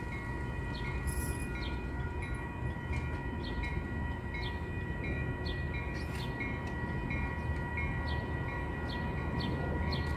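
A railroad warning bell ringing steadily, about three strikes every two seconds, over the low rumble of a train.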